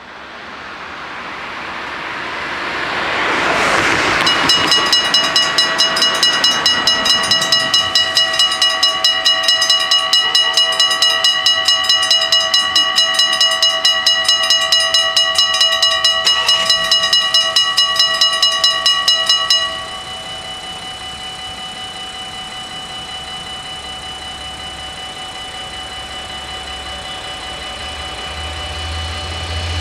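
Dutch AHOB level-crossing bells ringing in rapid, even strokes. They start about four seconds in while the barriers lower, then carry on about 10 dB softer from two-thirds of the way through once the barriers are down. A low rumble from the approaching train builds near the end.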